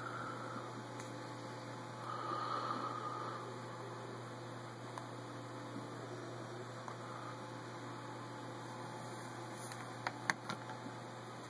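Steady low electrical hum under a constant hiss, with a few sharp clicks about ten seconds in.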